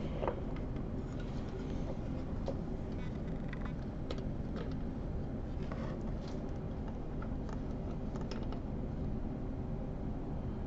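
Hands handling a stereo microscope: scattered faint clicks and light taps over a steady low hum.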